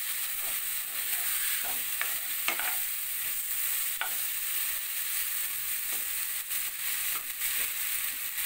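Cauliflower florets and potato pieces frying in mustard oil and spice paste in a non-stick wok, sizzling steadily while a wooden spatula stirs and scrapes them, with the odd sharp knock of the spatula against the pan. The vegetables are being fried down in the masala (koshano).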